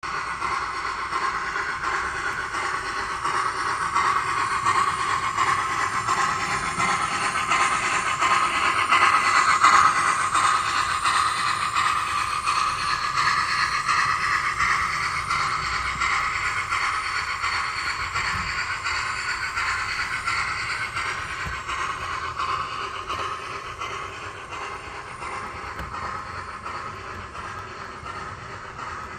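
OO gauge model train, a Dapol A4 locomotive hauling seven coaches, running along the track with a steady rattle of wheels on the rails, growing louder to about ten seconds in and then slowly fading as it passes by.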